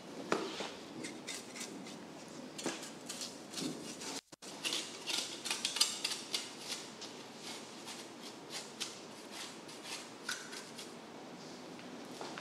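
A blade scraping the scales off a giant bluefin tuna, then a knife cutting into the fish by the head: a run of irregular short scrapes and clicks, broken by a brief gap about four seconds in.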